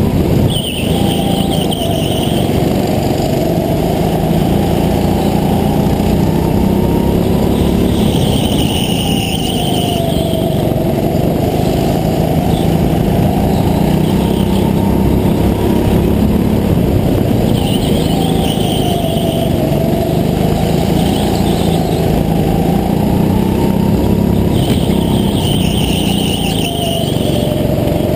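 Go-kart's small petrol engine heard from on board the kart, running hard, its pitch dropping and climbing again through each corner about every eight seconds. Tyres squeal briefly in the corners.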